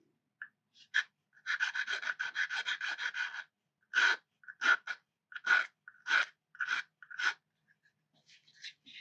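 Hand-sanding strokes rasping on a small 3D-printed model wagon: a quick run of about eight strokes a second for two seconds, then about eight slower single strokes.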